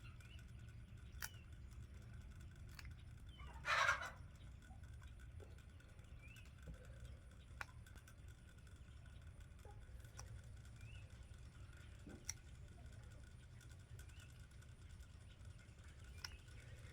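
Quiet stretch with a steady low rumble, a few scattered small sharp clicks from pet nail clippers trimming a rabbit's overgrown nails, and faint bird calls. A short rustle about four seconds in.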